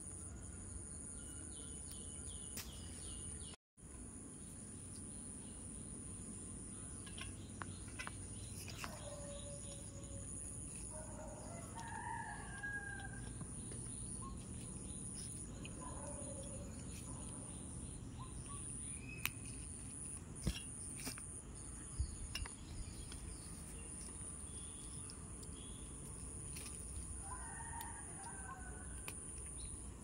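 A rooster crowing a few times, about nine seconds in and again near the end, over a steady high-pitched buzz.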